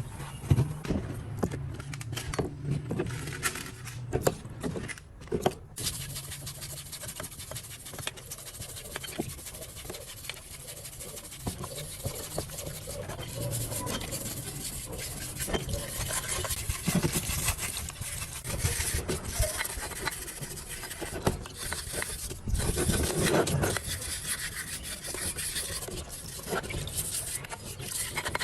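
Irregular rubbing and scraping of hand tools working on metal parts, with scattered sharp knocks.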